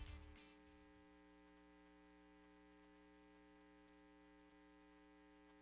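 Closing music fading out within the first half second, then near silence with a faint steady electrical hum of several fixed tones.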